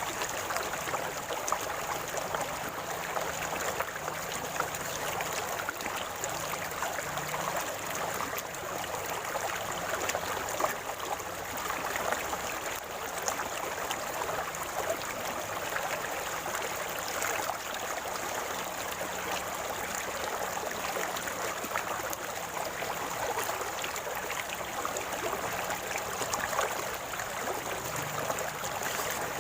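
River water flowing and gurgling steadily, an even rushing with small splashy spikes throughout.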